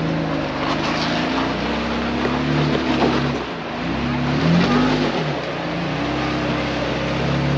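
Jeep engine running, its revs rising and falling several times, with the sharpest dip and climb around the middle.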